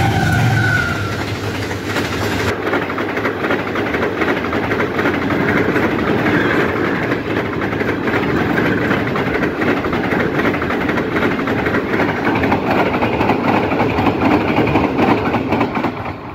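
Pakistan Railways GEU-40 diesel-electric locomotive hauling an express passenger train past at high speed, about 110 km/h. The steady two-note tone of its horn dips slightly in pitch and dies away about a second in, then the coaches roll by with a continuous rumble and rapid clatter of wheels over the rail joints. The sound eases off near the end as the last coach passes.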